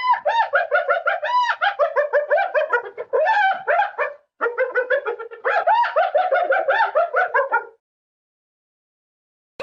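An animal calling in two runs of quick, repeated pitched notes, each run lasting about four seconds, then silence.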